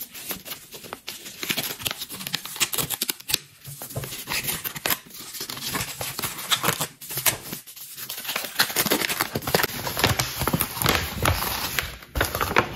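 Paper jewellery packaging rustled, crinkled and torn by hand as it is unwrapped, a continuous run of crackling with many small sharp ticks.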